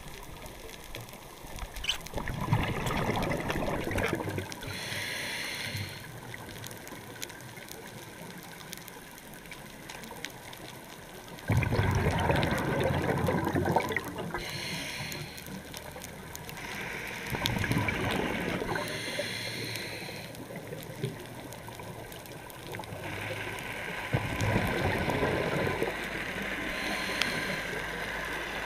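Scuba diver breathing through a regulator underwater: four breaths, each a gurgling rush of exhaled bubbles followed by a shorter, higher hiss of air through the regulator.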